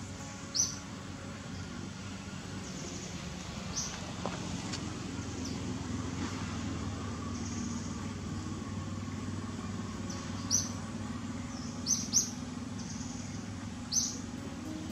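Short, sharp high bird chirps, about half a dozen, scattered over a steady low drone of distant traffic.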